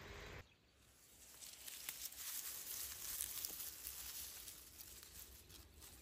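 Faint rural outdoor ambience: a thin, high hiss with a few soft ticks and rustles. A low rumble cuts off suddenly about half a second in.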